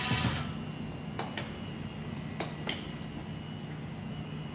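A few short, sharp metallic clicks and clinks from a tool working a screw out of a car door panel, heard over a low steady hum.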